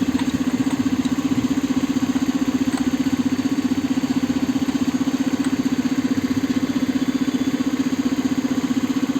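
An engine idling steadily, with a fast even pulse of about a dozen beats a second.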